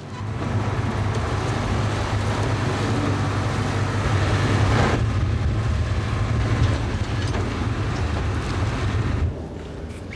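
Heavy engine running steadily with a deep hum and a broad mechanical noise; the level drops suddenly about nine seconds in.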